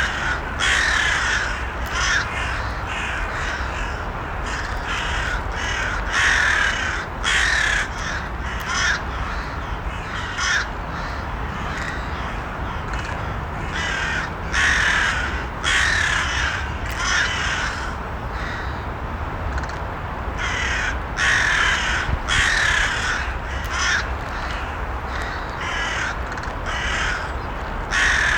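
Crows cawing, many short harsh calls coming every second or so, some overlapping, over a steady low background noise.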